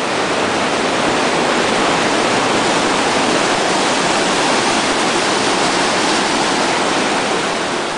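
Firehole River cascade: whitewater pouring over and around rocks in a loud, steady rush of water.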